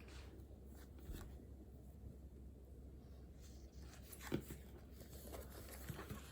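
Quiet room with a steady low hum and a few faint soft clicks and rustles, the clearest one a little over four seconds in.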